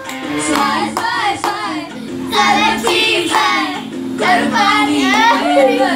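A song with a singing voice over a steady instrumental backing.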